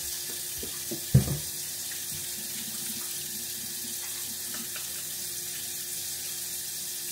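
Kitchen tap running steadily into a sink as hands are washed under it, with one sharp knock about a second in.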